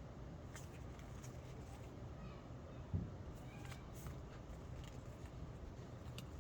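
Faint handling of baseball cards being flipped through: a few light clicks and a soft bump about three seconds in, over a steady low hum.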